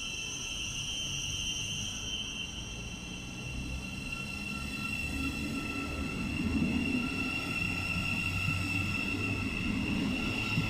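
Thameslink Class 700 electric train moving slowly through the platform, giving a steady high electric whine over a low wheel rumble that grows louder about halfway through.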